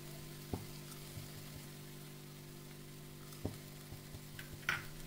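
Two eggs cracked on the rim of a nonstick pot and dropped in: three light taps, the last a little longer, over a faint steady hum.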